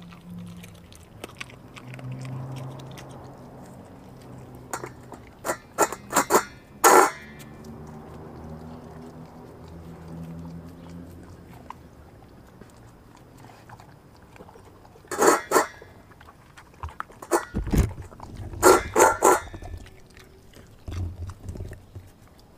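A large dog eating a raw meal of meat and chicken bones, chewing with three short bursts of loud, sharp crunches and clicks: about a quarter of the way in, and twice more in the second half.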